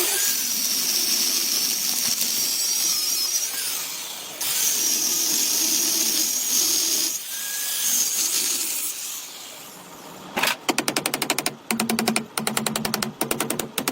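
A power tool running steadily with a high-pitched whine, briefly easing off twice, then giving way about ten seconds in to a fast series of sharp, repeated pulses.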